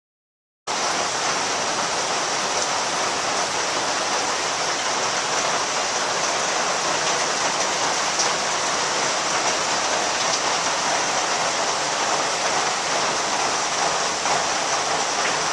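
Steady rush of a flooding, swollen river, with rain falling, starting abruptly less than a second in.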